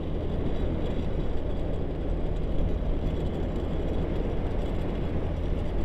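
Motorbike engine running steadily while riding along a road, mixed with a steady rush of wind on the microphone.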